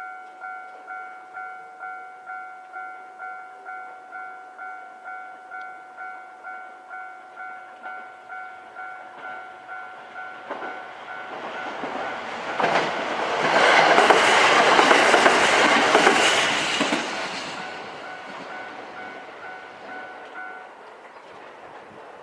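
Level-crossing warning bell ringing steadily, about one and a half strikes a second, as a KiHa 127 diesel railcar passes. The train swells to the loudest sound about halfway through, with wheels knocking over rail joints, and the bell stops shortly before the end.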